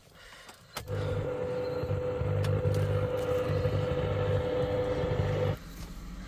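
Mahindra Thar's diesel engine starting and running, then settling to a quieter idle about five and a half seconds in.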